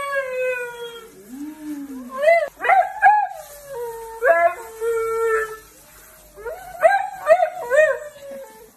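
Siberian husky howling and whining in a string of rising and falling yowls with short yips, protesting at being bathed.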